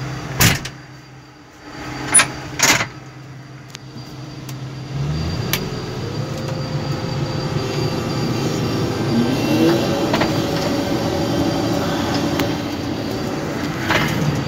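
John Deere 1550 WTS combine harvester running, heard from inside its cab. Three sharp clicks come in the first three seconds. About five seconds in, the engine and threshing machinery come up louder and then run on as a steady drone while the combine moves through barley.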